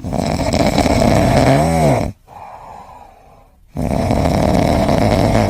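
Loud snoring: two long snores about two seconds each with a quieter pause between, the first ending in a brief squeaky rise and fall in pitch.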